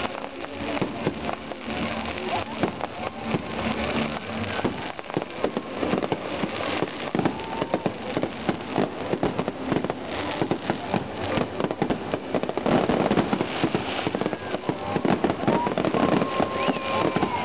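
Fireworks display going off: a dense, continuous run of rapid crackling and popping from crackling stars and ground fountains, growing a little louder in the last few seconds.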